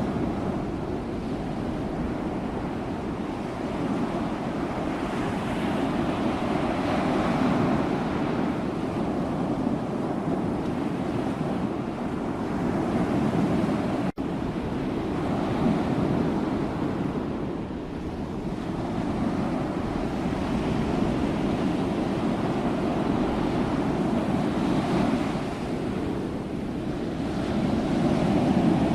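Sea waves breaking and washing ashore, the surf swelling and easing in slow surges every few seconds. There is a split-second break in the sound about halfway through.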